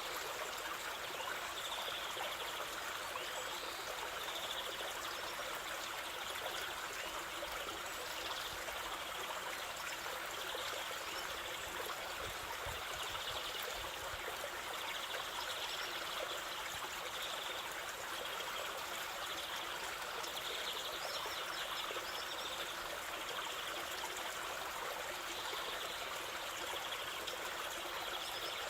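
Waterfall: a steady, even rush of falling and flowing water.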